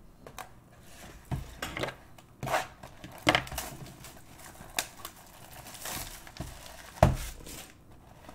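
A shrink-wrapped cardboard Bowman hobby box of baseball cards handled on a tabletop: irregular knocks and scrapes, with its plastic wrap crinkling. The sharpest knock comes about seven seconds in.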